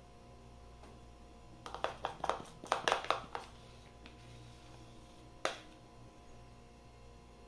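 A metal spoon clinking against a bowl and the foil tartlet cases as the last of a condensed-milk filling is scraped out and dropped in: a quick run of clinks about two seconds in, then one more clink a few seconds later.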